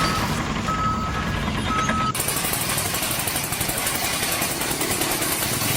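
Heavy construction vehicle running, with its reversing alarm giving a few short beeps in the first two seconds. It then gives way abruptly to a steady, hissy machine noise.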